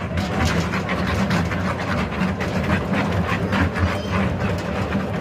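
Passenger train running along the track, heard from aboard: a steady rumble with irregular clicks and clacks from the wheels and cars, the "chhak" sound of the moving train.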